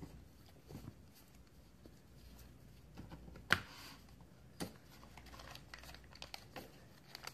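Faint rustling and light tapping of paper and cardboard packaging being handled: a paper guide booklet and the flaps of a phone box. Two sharper taps stand out, about three and a half and four and a half seconds in.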